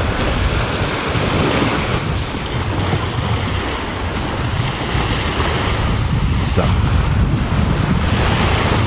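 Small waves washing up onto a sandy beach, a steady surf wash, with wind rumbling on the microphone.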